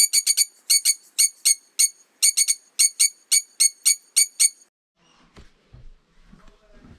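A bird giving a fast run of short, high, piercing chirps in quick little groups, about three or four a second, which stop about four and a half seconds in, leaving only faint low rustling.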